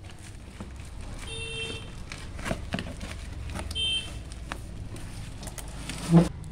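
Clear plastic and bubble wrap crinkling and tearing as a parcel is ripped open by hand, over a steady low hum. Two short high beeps sound, about a second in and again about four seconds in, and a short dull thump comes near the end.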